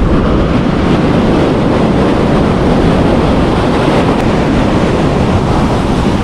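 Steady wind buffeting the microphone over the wash of surf breaking on an ocean beach.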